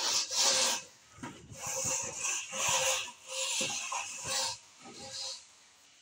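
Long straight screed bar dragged across a damp sand-cement floor bed. It makes a rough scraping in about six strokes with short gaps between them.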